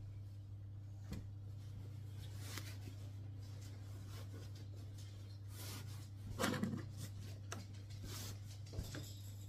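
A few light knocks and rustles of things being handled, the loudest about two-thirds of the way in, over a steady low hum.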